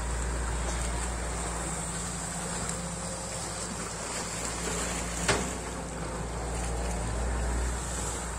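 SANY SY215C excavator's diesel engine running steadily as the machine digs a ditch in wet mud, with a single sharp knock about five seconds in.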